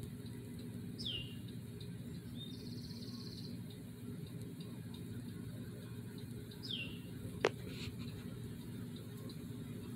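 Small songbird calling: two short downward-sliding chirps several seconds apart and a brief buzzy trill, over a steady low hum. One sharp click about seven and a half seconds in.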